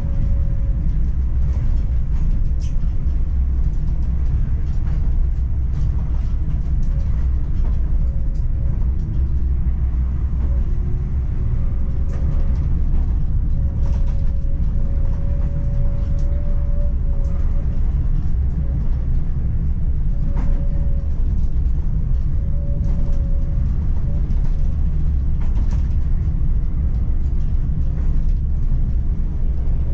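PESA Swing 122NbT low-floor tram running along the track, heard from inside the driver's cab: a steady low rumble, with a middle-pitched whine that comes and goes and short clicks now and then.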